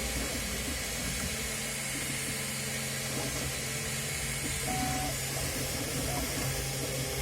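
3D printer running: a steady fan hiss over a low hum, with brief pitched whines from its stepper motors, the clearest about five seconds in.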